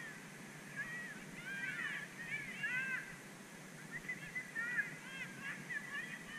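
Birds calling: many short, overlapping calls that rise and fall in pitch, coming irregularly throughout.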